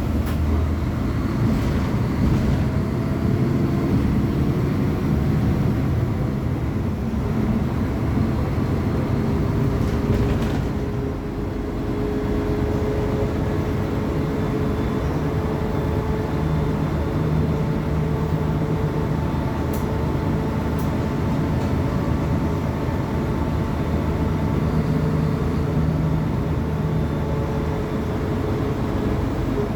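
Mercedes-Benz O500UA BlueTec 6 articulated bus's diesel engine running steadily, with a steady whine riding over it. The sound drops briefly about eleven seconds in.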